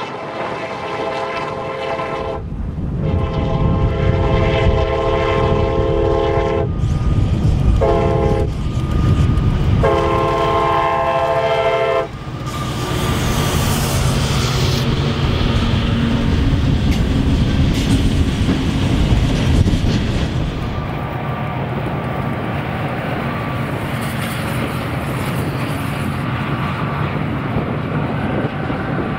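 CSX diesel locomotive's air horn blowing as the freight train approaches: a long blast, a short one, then a final long blast that stops about 12 seconds in. After that a consist of CSX EMD six-axle diesels, SD50s among them, runs close past with engines working and steel wheels clattering on the rails.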